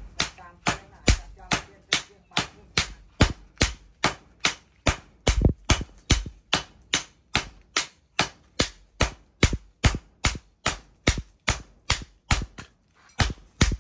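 Sledgehammer and hand hammer forging a red-hot steel cleaver blank on a steel post anvil: sharp metallic blows, about two to three a second, with a brief pause about twelve seconds in.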